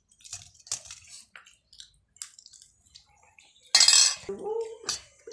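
Small clinks, scrapes and rustles of a meal being eaten from foil-lined paper plates, with a short, loud burst of noise about four seconds in.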